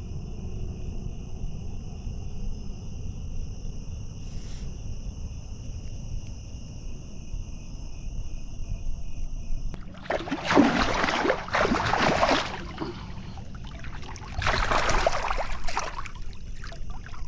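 Crickets chirp in a steady high chorus over a low rumble. About ten seconds in there are two loud rushing noises, each a second or two long, about four seconds apart.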